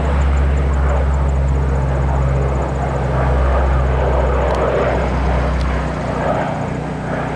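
Military turboprop aircraft engines running with a steady low drone that eases off near the end.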